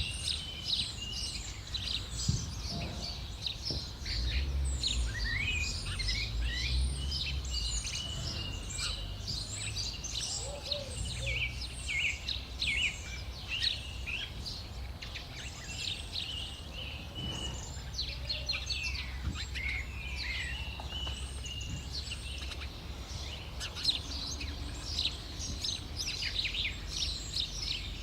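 Many small birds chirping continuously in overlapping short calls, over a steady low rumble.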